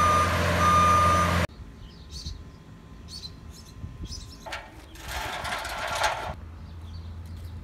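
A self-propelled boom lift's reversing alarm beeping in long, evenly spaced pulses over its running engine, cutting off abruptly about a second and a half in. It is followed by quieter outdoor background with faint clicks and a brief rush of noise.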